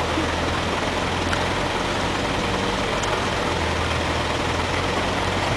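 Steady low hum of an idling engine, unchanging throughout.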